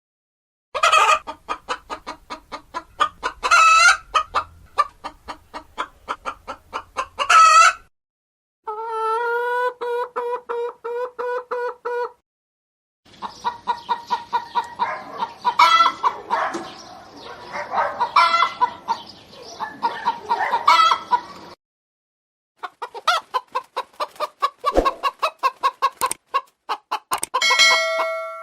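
Chickens clucking in rapid, repeated calls, in several short clips cut together with brief silent gaps between them.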